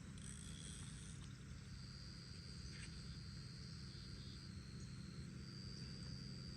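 Insects trilling: one steady high trill that stops briefly about two-thirds of the way through and then resumes, with a short, higher buzz near the start, over a low steady background hum.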